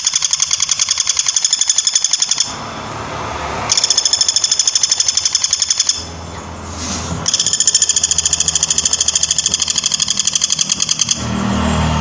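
Woodpecker giving a fast, even rattling call, a long run of high notes repeated several times a second, broken by three short pauses.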